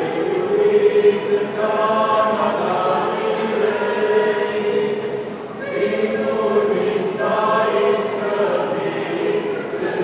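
Mixed choir of men's and women's voices singing a Romanian Christmas carol (colind) without instruments, with a short break between phrases about halfway through.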